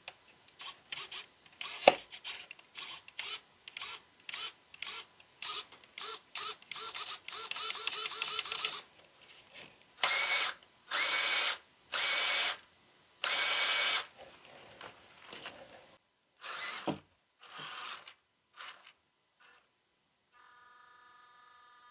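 The small electric servo and motor of a 1/12-scale Rochobby Willys MB RC crawler whirring in short bursts as the controls are worked, about two a second, then four longer, louder whirs of about a second each, with a few more short buzzes after them.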